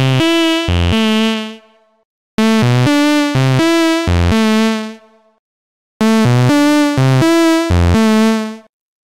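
Xfer Serum lead synth playing a short melodic phrase of quick notes that ends on a held note. The phrase loops three times with a gap between each pass. The lead runs through an EQ boost around 3 kHz.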